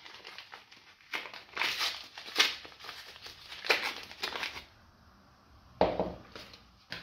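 Crinkly wrapper of a Cien cream soap bar being unfolded and pulled off the bar, in several crackling bursts. About a second after the crinkling stops there is one short knock, as the bar is set down among other soap bars.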